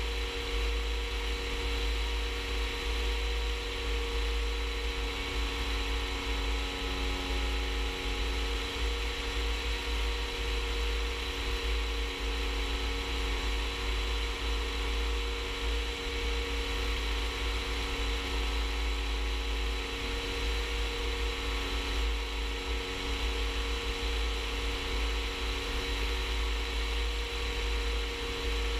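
Rans S-14 light aircraft's engine and propeller droning steadily in level cruise, with a heavy low rumble underneath and a few steady whining tones.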